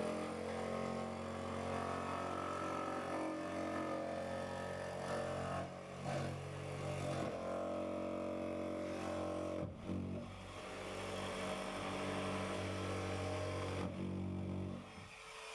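Corded electric saw motor running under load while cutting into a boat's wooden bulkhead. It runs steadily, with its pitch sagging and briefly dropping out three times, and stops shortly before the end.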